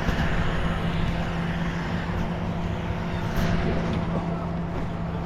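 An engine running steadily at an even speed: a constant low hum under a noisy rush.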